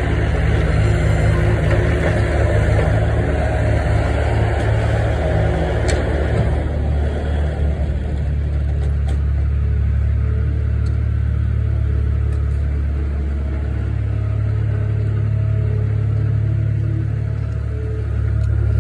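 Skid-steer loader's diesel engine running close by, revved and working hard for the first several seconds, then settling to a steadier run.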